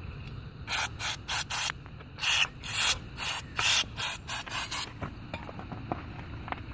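Short hissing bursts from an aerosol can of brake cleaner, about a dozen in quick succession, sprayed onto an excavator track-tensioner valve to blast dirt out of its grease nipple. A few faint clicks follow as the part is handled.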